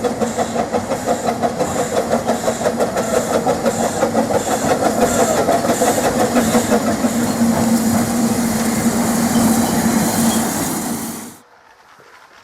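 Steam locomotive running, with a rapid, even chuffing and hiss. It cuts off suddenly about eleven seconds in.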